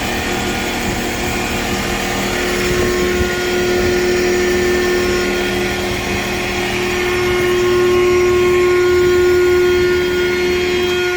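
Large 5'x9' CNC machine running, a steady mechanical hum with one strong held whine over it, swelling a little louder toward the end.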